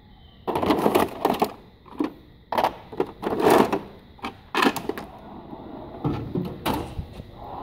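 Hand tools clacking and clattering in a steel toolbox drawer, with the drawers sliding shut and open.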